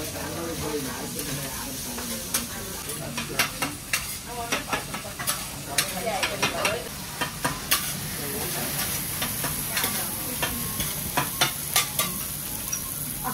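Food sizzling on a teppanyaki steel griddle, with many sharp clinks of metal utensils and dishes; the high sizzling hiss grows louder about eight seconds in.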